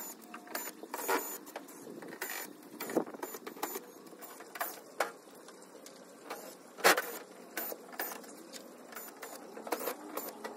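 Ryobi cordless drill working on the oven's sheet-steel casing, with irregular sharp metallic clicks and clanks. The loudest clank comes about seven seconds in.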